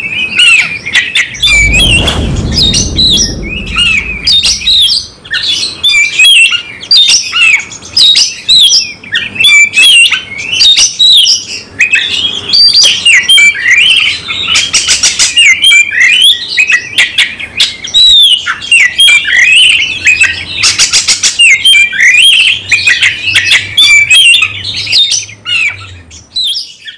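Caged oriental magpie-robin (kacer) singing loudly and without pause in full aggressive 'fighting' song: a fast stream of varied whistles, chirps and mimicked phrases, with buzzy rattling notes twice in the middle. A low rumbling thump comes about two seconds in, and the song cuts off suddenly near the end.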